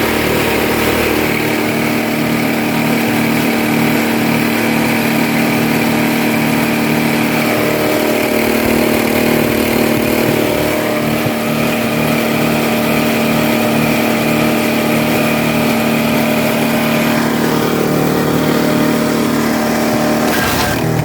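Super Handy wood chipper's small gasoline engine running loud and fairly steady, with only slight wavering rather than the bad surging it is known for. Its muffler weld is broken, so it runs nearly unmuffled. A sharp knock comes near the end.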